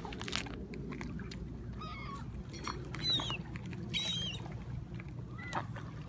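Gulls calling: a handful of short, high cries that slide down in pitch, at about two, three, four and five and a half seconds in, with scattered light clicks and a steady low background rumble.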